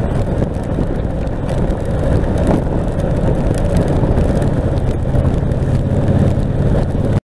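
Motorcycle riding on a wet road in the rain, heard from on the bike: a steady engine note under wind and road noise, growing a little louder in the second half, then cutting off suddenly near the end.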